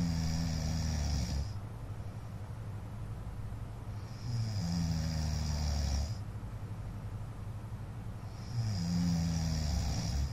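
A sleeping man snoring, with about two-second snores coming in a steady rhythm, one every four seconds or so. The first snore ends about a second and a half in, the second comes around the middle, and the third starts near the end.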